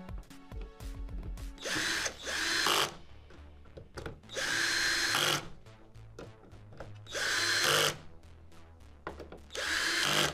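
Cordless drill-driver driving screws into the back cover of a flat-screen TV, in four runs of about a second each. Background music plays underneath.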